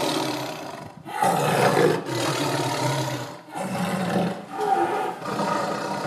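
Big cat roaring in a series of long, low calls, a new one starting about every one and a half to two seconds.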